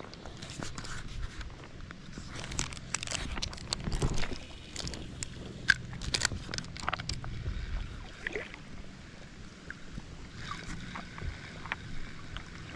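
Creek water sloshing and splashing around someone wading in the current, with scattered small splashes and clicks, busiest in the first half.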